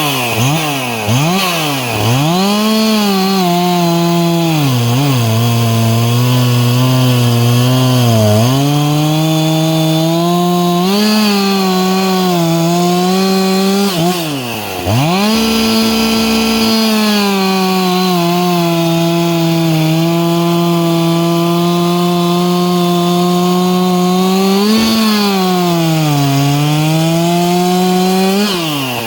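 Chainsaw with a hard chrome chain running at high revs while cutting wood. The engine pitch sags each time the chain loads in the cut and climbs again as it frees, several times over. About halfway through it briefly drops toward idle, then revs back up.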